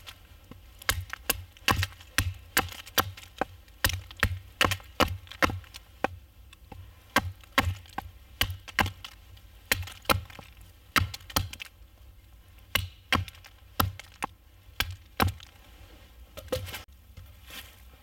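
Wood being chopped: a run of sharp knocks and cracks, about two or three a second, with short pauses about six and twelve seconds in.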